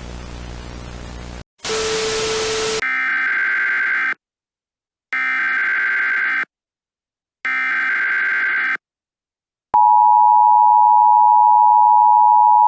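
Emergency Alert System tones. Static hiss and a short, harsher burst of noise with a low hum give way to three SAME header data bursts, the screeching digital warble, each about a second long with a second of silence between them. Then comes the steady two-tone attention signal, held for about three seconds until it cuts off.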